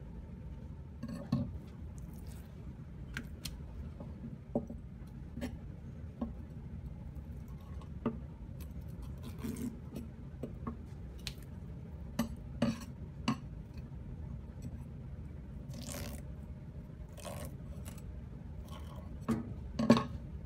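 Kitchen knife tapping, scraping and clicking on a wooden cutting board in scattered strokes as fish is filleted, over a steady low hum; the loudest click comes near the end.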